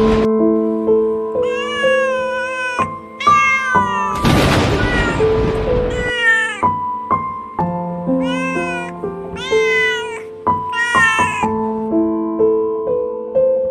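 A cat meowing over and over, about six separate meows, over slow music with held notes. A loud rushing burst of noise comes a little after four seconds in.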